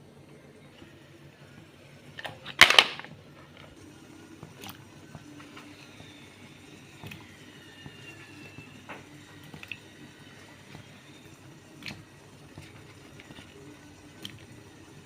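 Pot and kitchen utensils clattering: one sharp, loud clatter about two and a half seconds in, then scattered light clicks and taps over a low steady hum.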